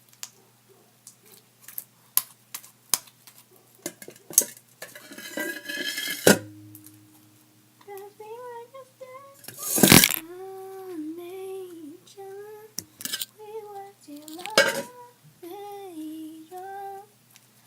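A spoon clinking and scraping against a bowl as slime is stirred, with a few sharp knocks. From about eight seconds in, a girl hums a tune over it.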